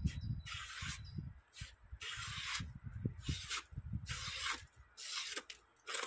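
Paper being sliced on the edge of a freshly sharpened axe, about six short rasping strokes roughly one a second: a sharpness test, and the edge cuts.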